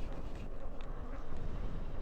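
Wind rushing over the microphone while riding an e-bike, a steady low rumbling noise with faint road rattles.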